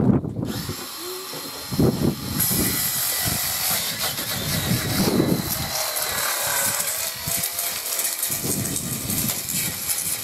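A saw cutting through a PVC cladding board: a steady, rasping hiss that starts faintly about half a second in and grows stronger a couple of seconds later.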